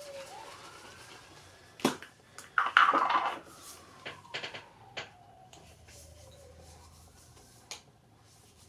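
Clicks and knocks from an aerosol hair-foam bottle being handled, with a short louder rustling burst about three seconds in.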